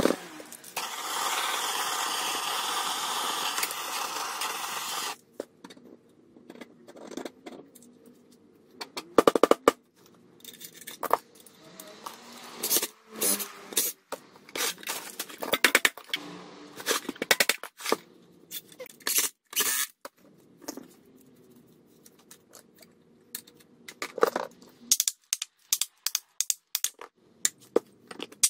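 Cordless power driver running steadily for about four seconds, then in short bursts while screws are driven into a cut-off saw's motor housing, with clicks, scrapes and clatter of screws and metal parts being handled between the bursts.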